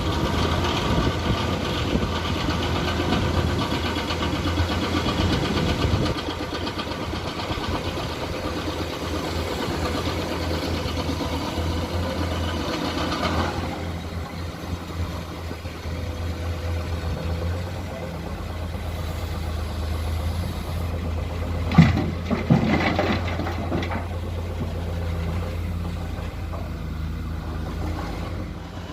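Komatsu PC210 hydraulic excavator's six-cylinder diesel engine running steadily while it works, louder and busier in the first few seconds. A sharp bang comes about 22 seconds in, with a smaller one just after.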